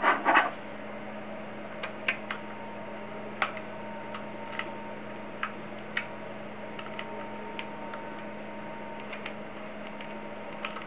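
Scattered small clicks and ticks of a small screwdriver turning a tiny screw into a portable hard-drive enclosure's case, with the case being handled, over a steady low electrical hum.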